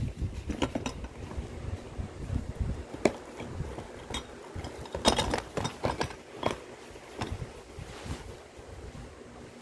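Cardboard box of a toy airplane model being handled and opened by hand: scattered taps, scrapes and rustling of the flaps, with a sharp click about three seconds in and a cluster of knocks about five seconds in.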